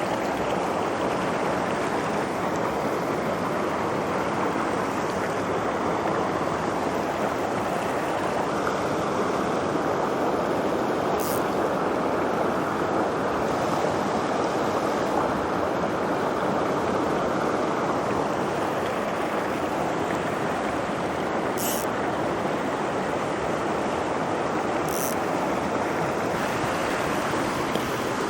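Steady rush of a mountain stream's running water, with a few faint high ticks.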